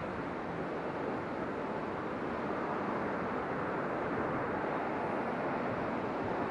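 Steady rushing noise of wind and rough sea, with no distinct events.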